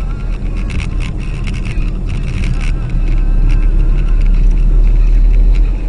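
Car driving on a wet road, heard from inside the cabin: a steady low rumble of engine and tyres, with a run of sharp ticks in the first couple of seconds. It gets louder about three seconds in.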